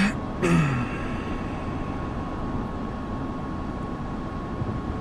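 Steady road and engine noise heard from inside a moving car's cabin, with a faint steady high whine throughout.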